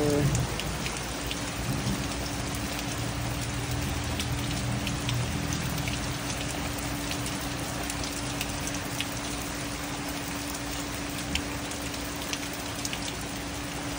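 Steady rain falling on a patio and swimming pool, with scattered close drips and a steady low hum underneath. No thunder.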